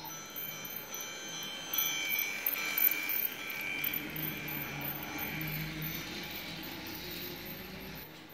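Toy train running past on plastic track, with a string of chime-like ringing tones that step from pitch to pitch over a low motor hum and a few clicks.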